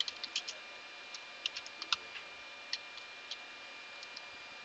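Computer keyboard keys clicking in irregular runs of light keystrokes as a command is typed, over a faint steady high-pitched hum.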